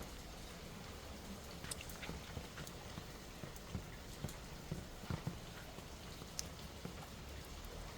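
Light rain: scattered raindrop ticks and taps over a faint steady hiss, with a few louder drips about four to five seconds in.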